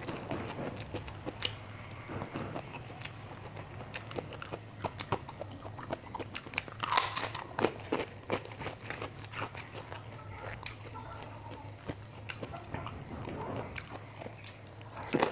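Close-miked chewing of fried rice eaten by hand, full of small wet clicks and crunches, loudest in a dense crunchy stretch about seven seconds in, over a low steady hum.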